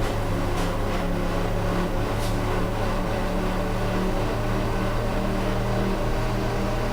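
Steady low mechanical drone, like a running motor, with a few faint ticks in the first couple of seconds.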